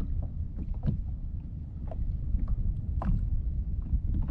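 Wind rumbling on the microphone over choppy sea, with water lapping against a small boat's hull in a few light slaps.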